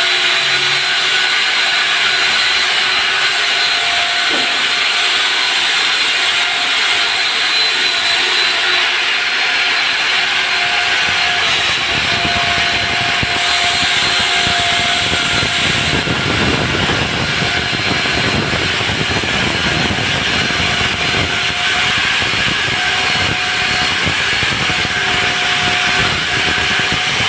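Electric diamond core drill running steadily while cutting through a concrete slab: a loud, even whine and hiss, with a rougher low grinding rasp joining about halfway through.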